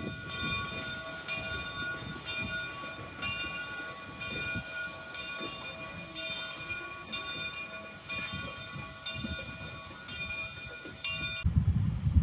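Steam locomotive bell ringing steadily, about a stroke every 0.6 seconds, over the low rumble of a slow-moving train: Southern 401, a 2-8-0, pulling its passenger cars. Near the end the ringing stops and a louder low rumble takes over.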